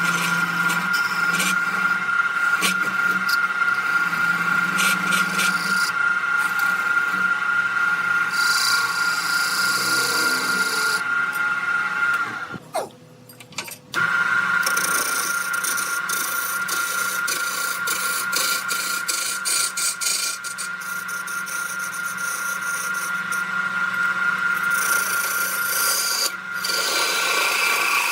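Wood lathe running with a steady whine while a turning tool scrapes and cuts the spinning wood. The sound cuts out briefly about halfway through, then resumes.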